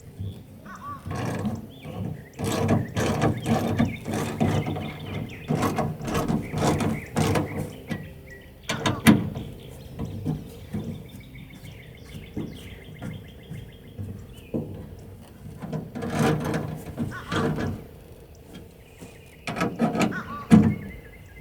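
Metal latch parts and tools knocking and rattling inside a truck tailgate in irregular bursts as a tailgate latch is worked into place, with one sharp click about nine seconds in.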